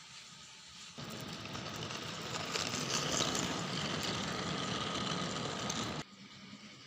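RailKing model train running, a steady rushing engine-like noise that starts suddenly about a second in, builds, and cuts off abruptly about six seconds in.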